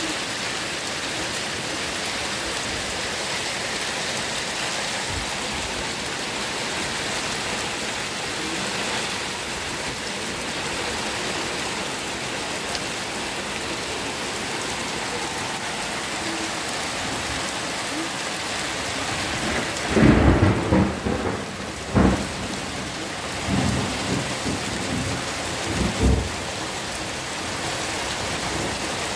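Heavy rain falling steadily, with loud thunder about two-thirds of the way in: a clap and rumbles that roll on for several seconds, one sharp crack among them.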